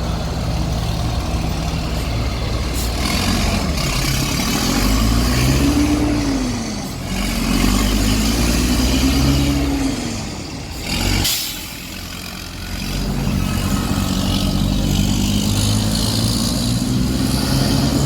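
Diesel engine of an Irizar Century charter coach revving up and falling back twice, then running steadily with a slowly rising pitch. A brief sharp hiss of air cuts in about eleven seconds in.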